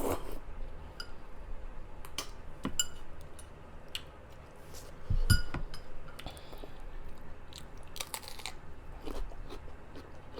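Close-miked chewing and biting of food, with scattered short wet clicks and a low thump about five seconds in.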